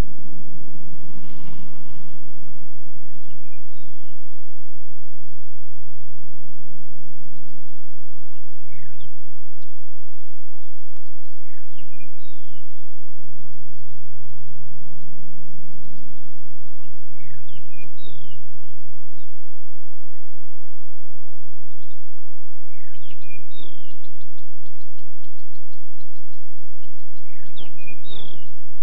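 Birds calling in short, quick chirps and whistles, again and again, over a steady low drone.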